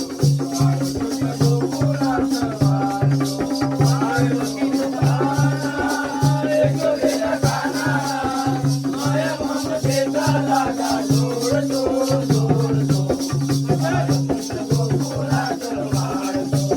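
Jakhadi folk dance music: a low drum beating a steady pattern under a held drone note, with rapid jingling percussion and a wavering sung melody over the top.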